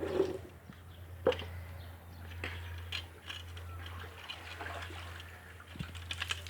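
Scattered light clicks and taps of a screw being worked by hand into a wooden plug, with one sharper knock about a second in, over a steady low hum.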